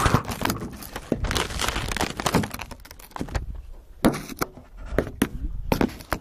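Irregular crunching and rustling with scattered knocks: footsteps in snow and handling of the camera close to the microphone.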